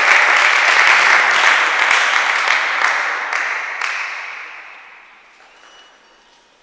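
Spectators applauding a point, a dense clapping that dies away between about three and five seconds in.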